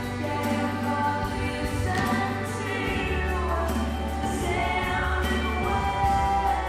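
Recorded music with a choir singing sustained chords over a steady bass.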